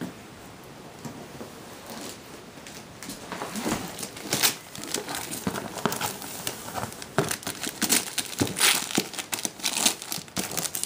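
Christmas wrapping paper being torn and crumpled by a small child's hands, in irregular rips and rustles that start about two seconds in and grow busier toward the end.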